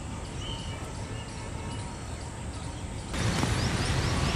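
Outdoor background noise with a steady low rumble of distant traffic; it grows louder about three seconds in.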